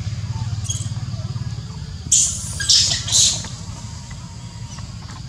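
Macaque screeching: three harsh, high-pitched screams in quick succession about two seconds in, over a steady low hum.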